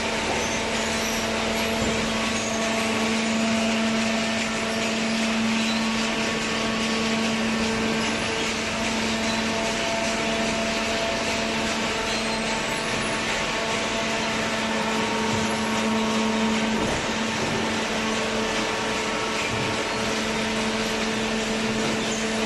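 Hydraulic waste paper baler running: a steady motor-and-pump hum with a constant hiss, held at an even level throughout.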